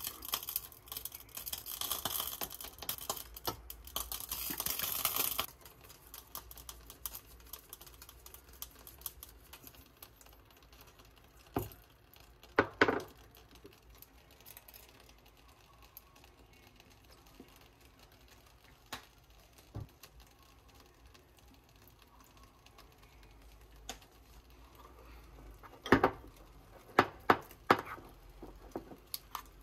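Metal spoon scraping and clinking in a bowl while gochujang, chili powder and sugar are spooned in and mixed. A dense stretch of scraping comes first, then a few separate taps, and a quick run of sharp knocks near the end as the paste is stirred.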